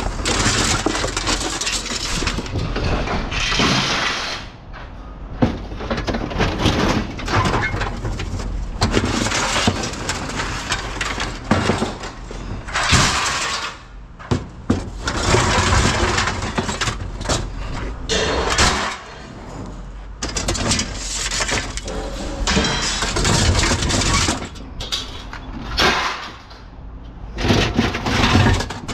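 Loose scrap metal clattering and crashing in irregular bursts, pieces tumbling and banging together as they are dumped and handled.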